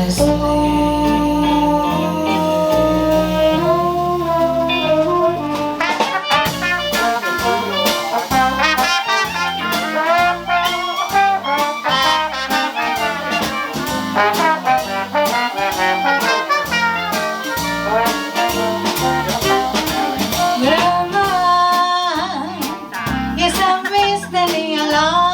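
Live Dixieland jazz band playing: trumpet and trombone lines over a walking bass. A steady beat of sharp rhythm strokes comes in about six seconds in.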